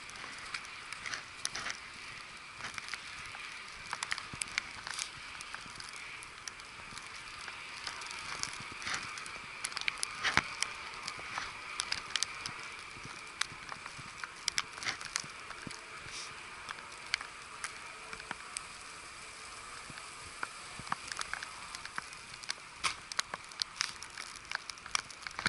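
Snow crackling and ticking in many irregular, sharp clicks over a steady hiss of blizzard ambience.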